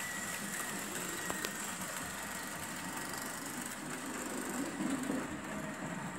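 Märklin H0 model train with a model SBB Crocodile electric locomotive running along the track: a steady rumble of wheels and motor, with a light click about a second and a half in.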